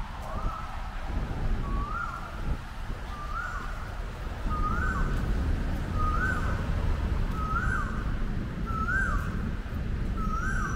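Road traffic passing as a steady low rumble. Over it, a short call that rises, holds and falls repeats very evenly about once a second.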